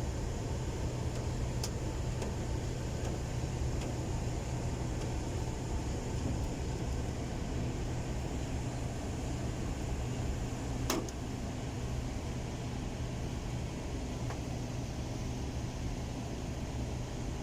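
A steady low mechanical hum of a motor running, with one sharp click about eleven seconds in.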